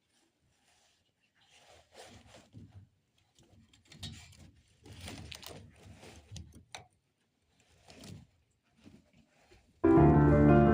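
Faint, irregular rustling and soft knocks of handling, with quiet gaps between them; a little before the end, piano music starts suddenly and loudly.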